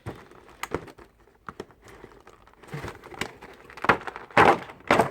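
Packaging of a trading-card collection box being handled: rustling and crinkling with scattered sharp clicks, and two louder scraping rustles near the end.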